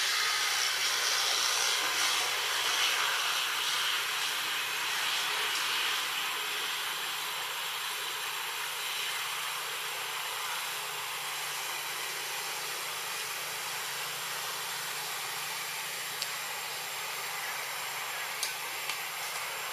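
Steady hissing outdoor background noise, a little louder over the first few seconds, with a few faint clicks near the end. No monkey calls stand out.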